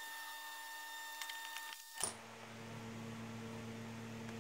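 Quiet handling of a chainsaw's clutch cover and bar nut as the cover is fitted: a few light clicks, then one sharp click about two seconds in, with a low steady hum after it.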